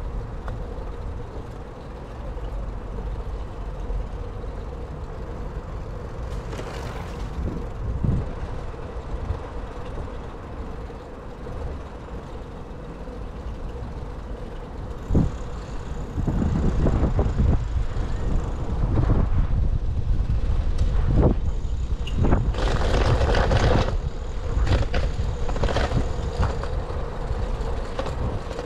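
City road traffic heard from a moving bicycle: motor vehicles passing over a steady low rumble of wind on the camera's microphone, getting louder a little past halfway. There is a brief hiss about four-fifths of the way in.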